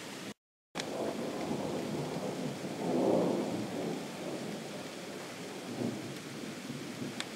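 Distant thunder rumbling over steady rain: a low roll swells to its loudest about three seconds in and dies away. The sound cuts out to silence for a moment near the start.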